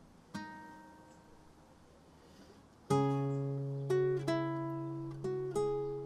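Nylon-string classical guitar, fingerpicked solo. One note is plucked and left to ring and fade, then about three seconds in a low bass note and chord sound, followed by single picked notes about twice a second that ring on.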